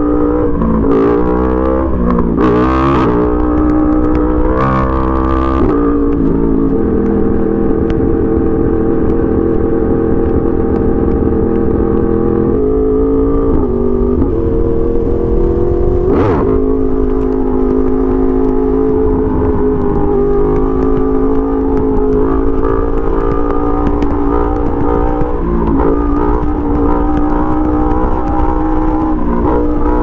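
Yamaha R1 sport bike's inline-four engine on the road, its pitch rising and falling several times in the first six seconds with throttle changes and gear shifts, then running at a mostly steady pitch. A brief sharp sound about sixteen seconds in.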